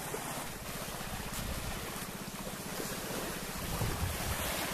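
Steady wash of surf on a sandy shore, with wind rumbling on the microphone that swells a little in the second half.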